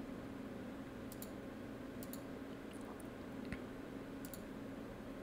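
A few faint computer mouse clicks, about a second, two seconds and four seconds in, over a low steady hum.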